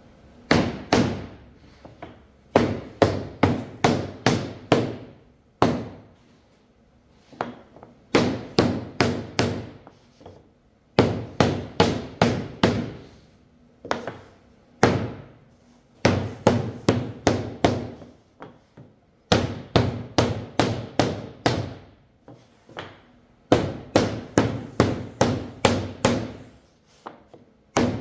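Mallet striking a wooden block to knock the glued joints of a shaker door frame together: sharp wooden knocks in quick runs of several blows, about four a second, with short pauses between runs.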